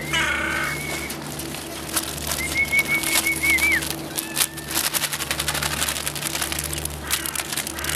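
Birds chirping in short high notes, over a steady low hum. From about the middle there is a run of sharp clicks and rattles as food is shaken out of a plastic packet onto stone paving.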